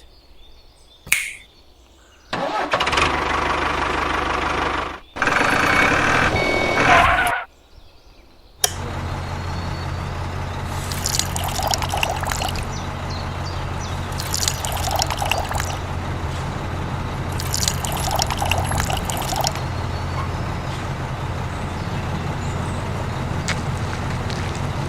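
Vehicle engine starting: two stretches of cranking-like noise, then the engine settles into a steady low idle about a third of the way in, with three brief louder surges later on.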